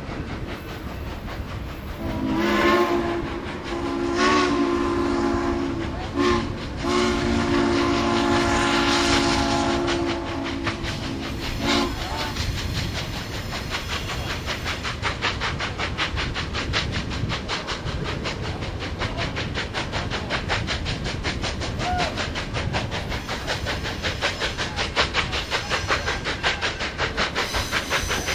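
Southern Pacific 4449's steam whistle blowing a chord of several tones in four blasts, long, long, short, long: the grade-crossing signal. After it comes the fast, even rhythmic beat of the moving train, with wind noise.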